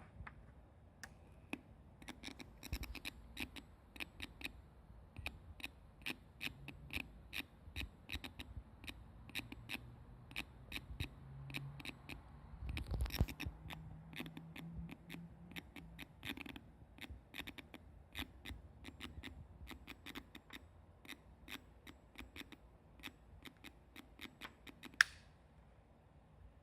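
Irregular spark-like clicking and crackling from a small speaker wired to a transformer's secondary coil. Each click comes as a fluorescent starter in series with a light bulb makes and breaks contact, making the bulb flicker at random, over a faint low hum. A denser crackle comes about halfway through, and one sharp louder click near the end.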